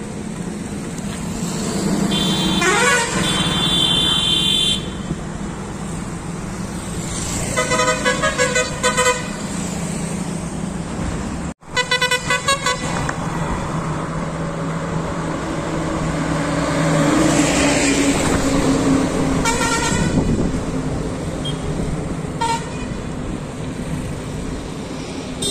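Light road traffic: engines of passing motorcycles and cars, with vehicle horns honking several times, some as quick repeated beeps. The sound drops out briefly just before the middle.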